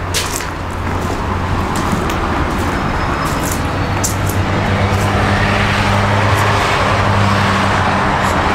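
A motor vehicle's engine running close by outside, a steady low drone that slowly grows louder, with scattered light clicks over it.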